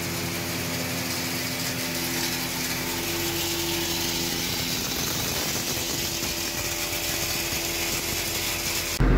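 Trapp TRF-800 hammer mill (grinder and forage chopper) running steadily under load, grinding corn into coarse meal.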